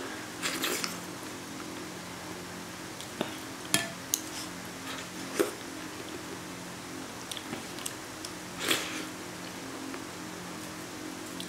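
A spoon clicks against a bowl several times as someone eats spoonfuls of cold pea-starch jelly, with short eating noises near the start and about nine seconds in. A steady low hum runs underneath.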